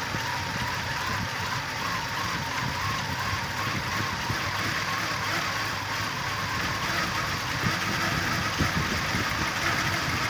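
A car engine running steadily, with a constant hiss over it.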